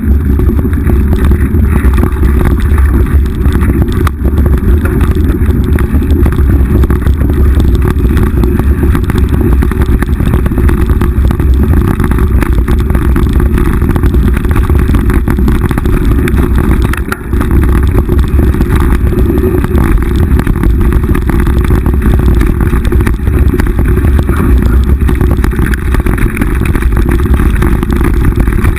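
Riding noise from a mountain bike going down dirt single track, picked up by a GoPro: a loud, steady low rumble of wind on the microphone and trail rattle, dropping away briefly partway through.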